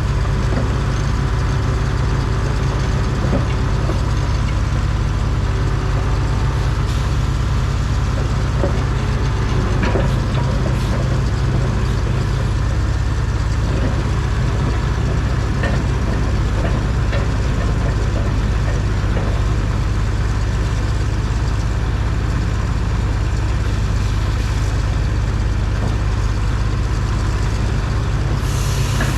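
Heavy diesel engine running steadily at a low, even drone, with a few faint metallic knocks and a brief hiss near the end.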